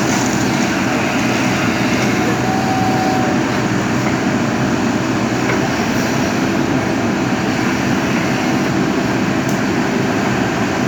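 Diesel engine of a JCB backhoe loader running steadily under work, an even low hum.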